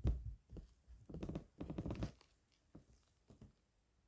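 Soft handling noises of small squishy toys being rubbed with flocking powder: a low rumble of handling at the start, a stretch of rubbing about a second in, then a few faint clicks.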